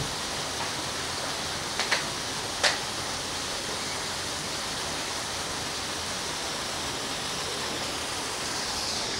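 Steady, even rushing noise, with three short sharp clicks about two seconds in, the last of them the loudest.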